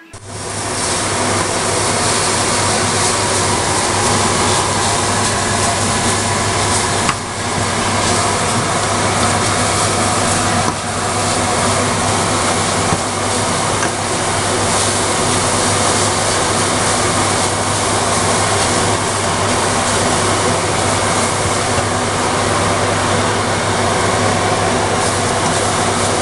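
Kitchen extractor hood fan running: a loud, even rush of air with a low electrical hum, coming up to speed in the first second.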